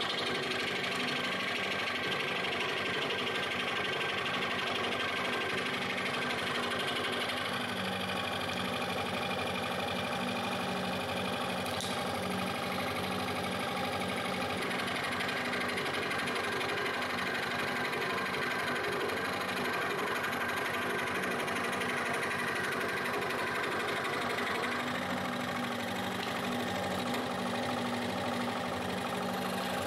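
Proxxon scroll saw running steadily, its blade going rapidly up and down as it cuts through thin plywood.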